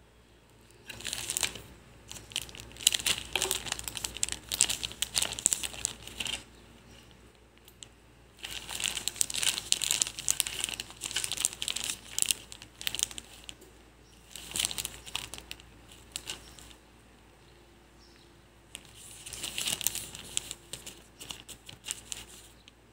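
Thin clear plastic sheeting crinkling under fingers, in four bouts of crackling a few seconds long with short pauses between.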